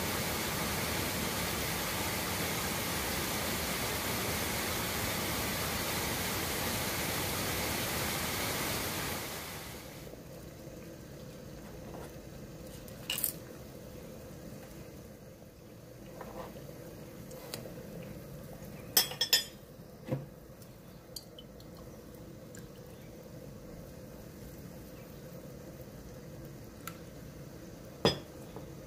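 A waterfall rushes loudly for about the first nine seconds, then stops. After it comes water simmering quietly in a stainless steel pot, broken by a few sharp metallic clinks, twice close together near the middle and once near the end.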